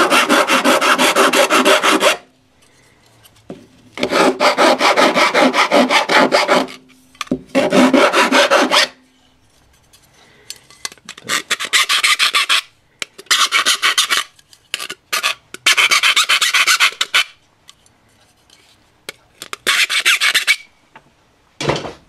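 A round file rasping back and forth along the edges of a rectangular cutout in a metal switch-box cover plate, deburring the rough edges left by a cutoff wheel. It comes in about seven bursts of rapid strokes, each a second or two long, with short pauses between them.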